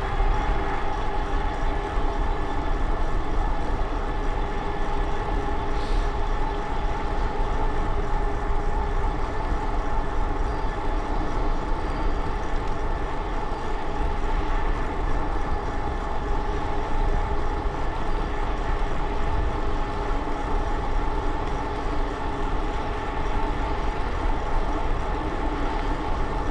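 Steady, unchanging drone of the ride in motion: a low rumble with several fixed tones running through it, and one brief faint tick about six seconds in.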